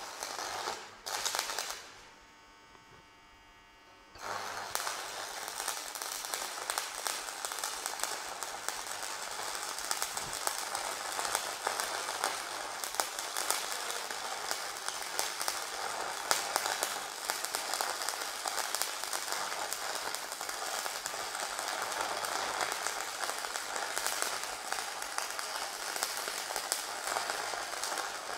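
Manual metal arc (stick) welding arc crackling steadily as a coated electrode is run along a steel plate, a dense run of small snaps. The sound stops about two seconds in and starts again about two seconds later.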